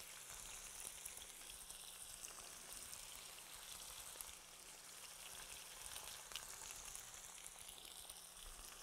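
Chicken breast strips frying in hot oil in a stainless steel skillet: a faint, steady sizzle with scattered small crackles.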